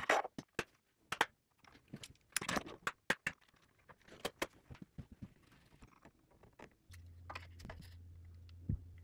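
Handling noise from clamping a board down on a machine table: irregular sharp clicks, knocks and short scrapes as the board is positioned and the toggle clamps are latched. A steady low hum comes in about seven seconds in and runs to the end.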